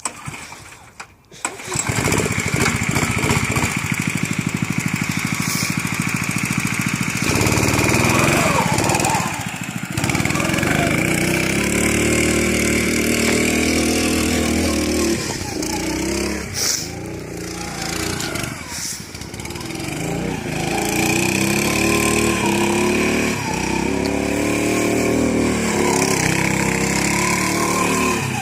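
Off-road go kart's small engine starting up, then running at a steady idle with even firing pulses. From about seven seconds in it is revved hard, its pitch rising and falling again and again as the kart is driven.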